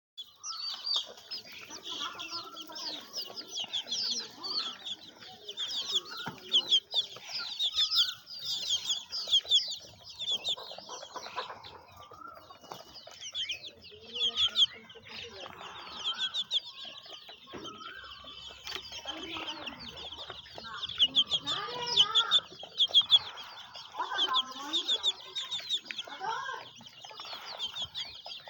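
Free-range desi chickens calling: continuous high-pitched peeping with lower clucks scattered through it.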